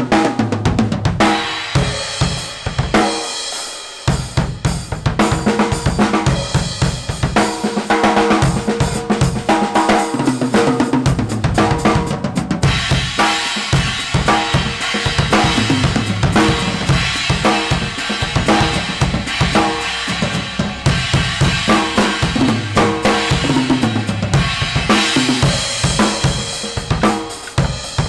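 Acoustic drum kit played in a steady groove with sticks: kick drum, snare, toms and cymbals, the cymbals heavier from about halfway through.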